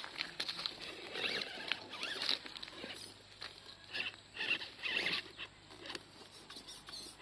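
RGT Jimny RC rock crawler's electric motor and gears whining in short, repeated bursts as throttle is applied, the pitch rising and falling with each burst, with tyres scrabbling and clicking on the rocks.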